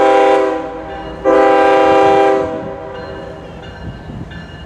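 A CSX GE ES44AH freight locomotive's multi-chime air horn sounding two long blasts, the first ending about a second in and the second following a moment later, over the low rumble of the approaching train.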